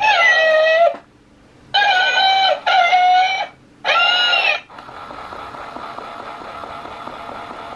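Sweet Petzzz electronic toy cat playing recorded meows through its speaker: four meows, each falling in pitch and lasting under a second. After them comes a steady hiss for about three seconds.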